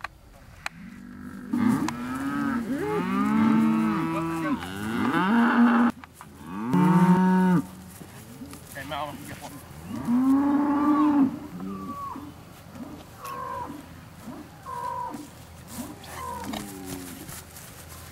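Bulls mooing over and over, with several long calls overlapping in the first half and shorter, quicker calls after.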